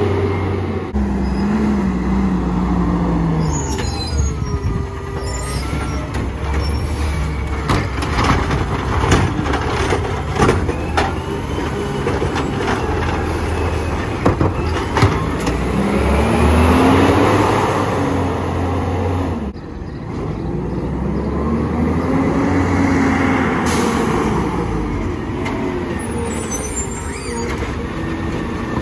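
McNeilus automated side-loader garbage truck working its arm: the engine revs up and falls back several times to drive the hydraulics as carts are lifted and dumped, with sharp clattering knocks of the cart and trash banging into the hopper in the first half.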